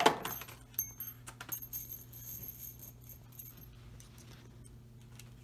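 Scattered light metallic clinks and handling clicks from small metal parts, with a faint high ringing tone for the first few seconds over a steady low hum.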